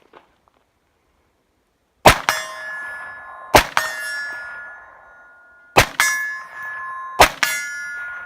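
Four suppressed shots from an 8-inch-barrelled 5.56/.223 AMP pistol, about a second and a half apart, starting about two seconds in. Each shot is followed a moment later by a metallic clang and a long ringing with several steady tones, as a steel target is hit.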